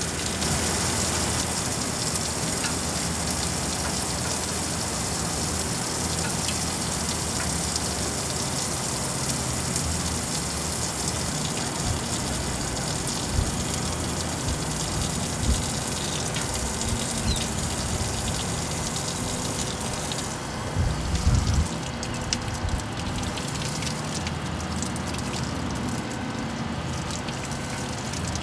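Pressurized water spraying steadily from a leak at a weld in a 12-inch pipe, a constant hiss. A few dull knocks occur. From about two thirds of the way through, the hiss turns uneven.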